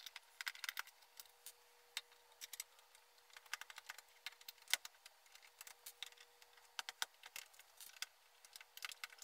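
Faint, scattered clicks and taps of small screws being undone and handled on the plastic underside of an Apple IIc case.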